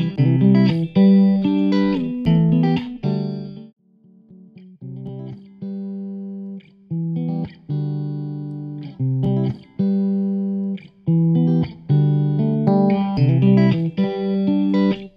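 Background music with plucked guitar notes, thinning out for a moment about four seconds in before picking up again.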